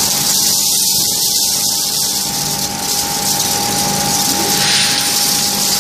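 Furnace scrap charging system running, a vibratory feeder shaking scrap toward the furnace: a loud steady hiss with a constant whine and a low hum underneath.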